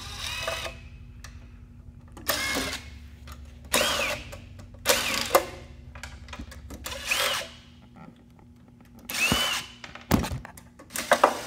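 Power drill driving out the screws of a disc sander's plate, in a series of short runs of about half a second each, the motor pitch rising and falling with each one. There is a thump about ten seconds in.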